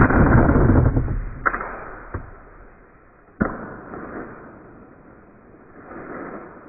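Compound bow shot: a sudden loud thump as the arrow is released. It is followed by rustling and three sharp snaps, about a second and a half, two seconds and three and a half seconds in, that fade away.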